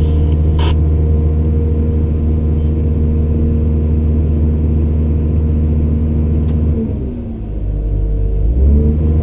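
Heavy construction machine's diesel engine running steadily with a deep rumble; the revs drop for about two seconds and then rise back up near the end.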